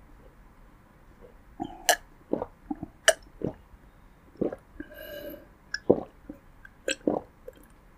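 A person gulping water from a glass: a run of short swallowing sounds, about two a second, starting a second and a half in.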